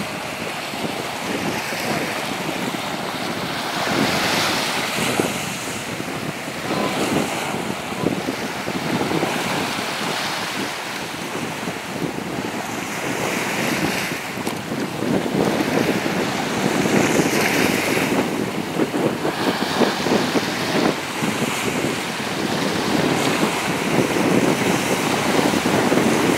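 Small waves washing up on a sandy shore, the surf swelling every few seconds, with wind buffeting the microphone.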